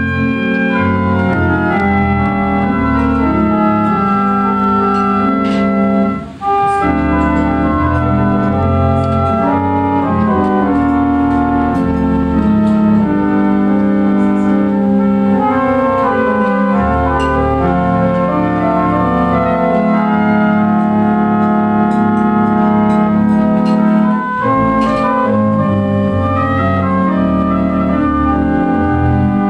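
Wurlitzer Model F theatre pipe organ being played: held chords over a pedal bass with a moving melody on top. The music breaks off briefly about six seconds in, then carries on.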